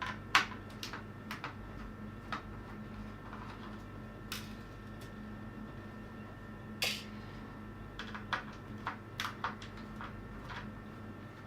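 Irregular small clicks and taps of a screwdriver and small screws being worked out of an Amiga 500 keyboard's plastic frame, with one slightly longer scrape about seven seconds in.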